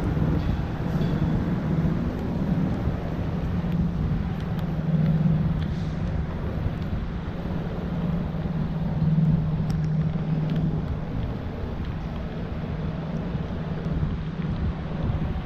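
City road traffic with a steady low engine hum, loudest around five and nine seconds in.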